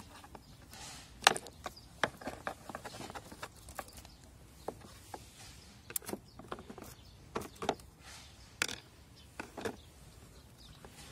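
Irregular clicks and light knocks from hands and tools working on a scooter. The sharpest knock comes about a second in, and no engine runs.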